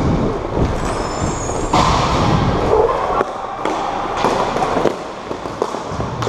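Hockey play heard up close from a player's body-worn camera: skates rolling and scraping on the rink floor, with scattered sharp clacks of sticks and puck and a steady rumble from the player's own movement.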